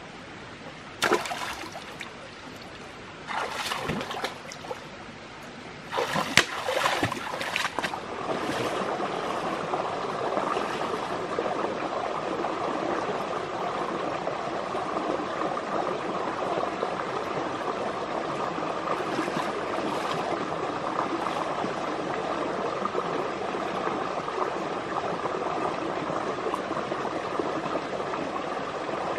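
Water splashing in three short bursts, then running steadily from about eight seconds in.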